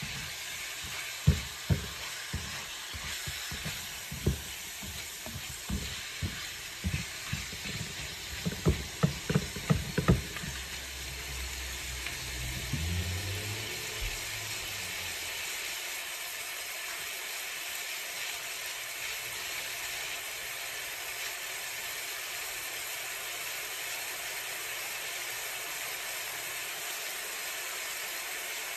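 Ground meat sizzling in a skillet, with a spatula knocking and scraping against the pan for the first ten seconds or so. After that only a steady sizzle remains.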